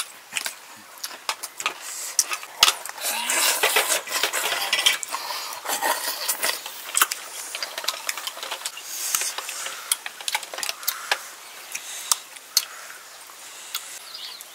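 Close-up eating sounds from cooked river snails and raw cucumber: many sharp clicks, crunches and shell clinks, with a stretch of hissy sucking in the first half.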